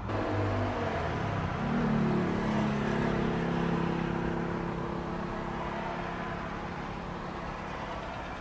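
A car engine runs nearby, rising in pitch briefly about two seconds in, then holding steady and slowly fading as it moves away.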